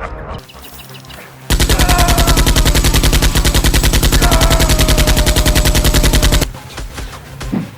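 Rapid automatic machine-gun fire, one sustained burst of about five seconds that starts and stops abruptly, dubbed over a Nerf-blaster fight as a sound effect.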